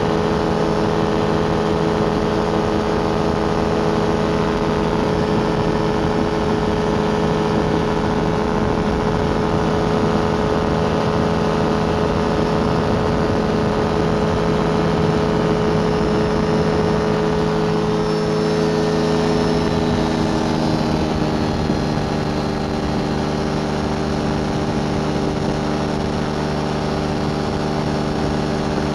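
Rotax 582 two-stroke twin engine of a Beaver RX550 ultralight running steadily in flight, with the propeller. The engine note sinks a little about twenty seconds in as power is eased back, then holds steady at the lower pitch.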